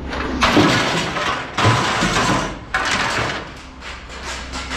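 Long pieces of scrap metal tossed into a steel scrap bin, clattering and scraping against the metal already in it, with three crashes about a second apart.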